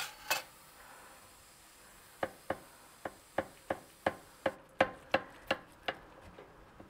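A serrated knife cutting into a baked sweet potato pie: a single click, then from about two seconds in a run of about a dozen sharp clicks, roughly three a second, as the blade saws through the crust.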